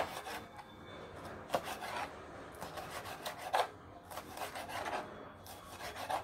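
Sharp chef's knife cutting bell pepper on a cutting board: a string of irregular short cuts and scrapes of the blade against the board.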